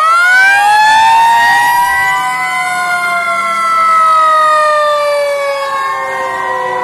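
Several fire engine sirens wailing together, their pitches rising in the first second and then sliding slowly down.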